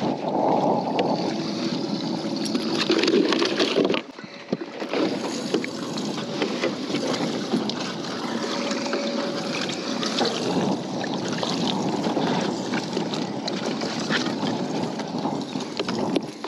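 Steady wash of water and wind around a bass boat sitting on the lake, with a few light knocks; the sound dips briefly about four seconds in.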